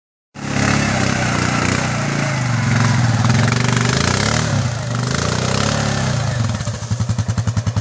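Yamaha Grizzly 700 ATV's single-cylinder engine running through mud, its pitch rising and falling with the throttle. About six and a half seconds in it settles into an even, pulsing beat at low revs.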